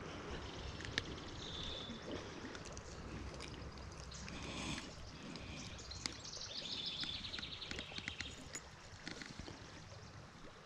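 Faint, steady flow of a small trout stream, with a few sharp clicks and some short high ticking patterns over it.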